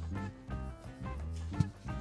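Background music with a pulsing bass line and one sharp click about one and a half seconds in.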